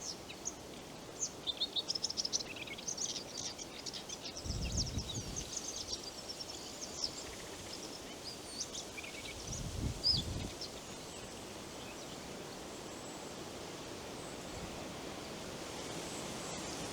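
Small songbirds chirping and twittering in quick runs of short high notes, thickest in the first few seconds and fading out after about ten seconds, over a steady soft forest hiss. Two brief low rumbles come through, near the middle and again about ten seconds in.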